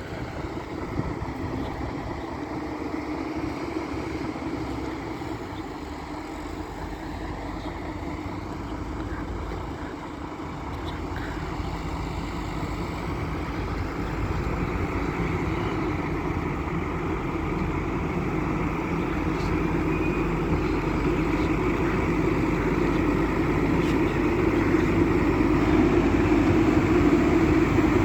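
Diesel engine of a Develon wheel loader running, growing steadily louder over the second half.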